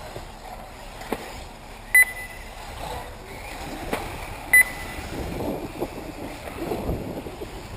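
Two short, high electronic beeps about two and a half seconds apart, from a race lap-timing system registering cars crossing the line. A low rumbling noise builds in the second half.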